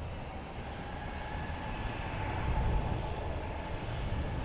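Jet airliner engines running at a distance: a steady low rumble with a faint whine over it, swelling a little about halfway through.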